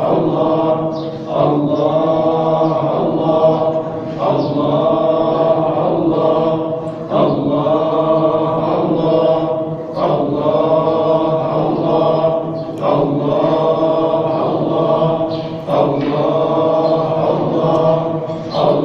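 Sufi hadra dhikr chanting: voices chant a repeated phrase in a steady cycle, the phrase starting over about every three seconds.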